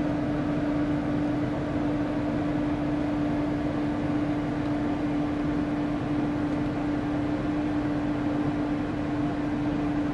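A steady mechanical hum with an even hiss and one unchanging tone, like a fan or blower running.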